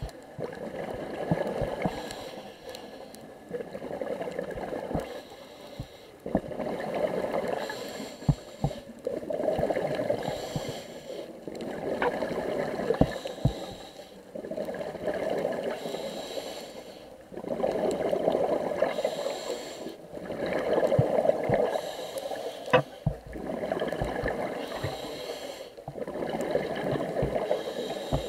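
A scuba diver breathing through a regulator underwater. Each inhale is a short hiss, and each exhale is a burst of bubbling and gurgling; the cycle repeats every three to four seconds.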